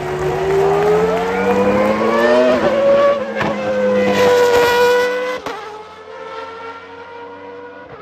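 Williams FW14B's Renault V10 Formula 1 engine at high revs, its pitch rising as the car accelerates, then holding. About five and a half seconds in the sound drops suddenly to a quieter, steady note.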